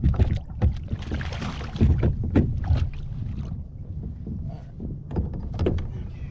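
Knocks and thumps on a fishing kayak's hull with water splashing, over a steady low rumble.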